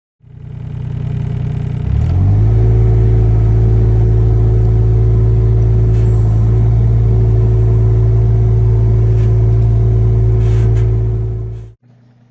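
Kato HD 35 mini excavator's small Perkins diesel engine throttling up over about two seconds, then running steadily at high revs. The sound cuts off abruptly near the end.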